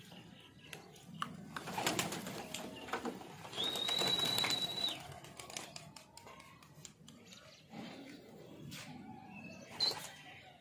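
A flock of domestic flying pigeons cooing, with scattered sharp clicks and clatter as they are flushed off the loft roof. A steady high whistle is held for over a second about four seconds in, and there is a short high chirp near the end.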